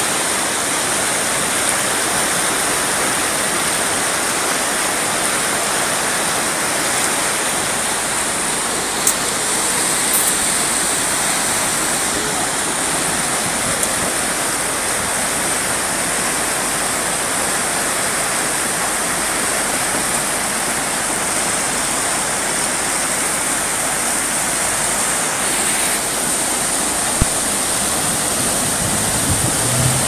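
Fast-flowing river in flood rushing steadily, an unbroken hiss of churning water, with two brief clicks, about a third of the way in and near the end.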